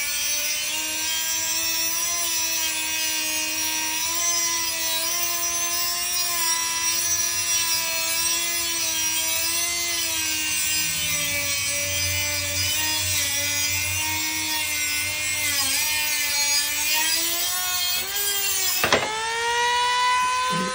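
A Dremel rotary tool's cut-off wheel grinding through the metal wire of a flower-pot rack, with a steady high whine whose pitch wavers slightly as the wheel bites. Near the end the whine drops sharply and at once spins back up.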